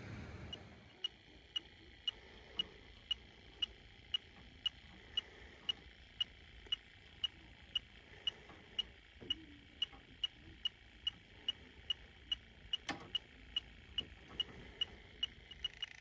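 Handheld electronic refrigerant leak detector beeping in a steady rhythm, about two short high beeps a second, as its probe searches an R-410A system for a leak.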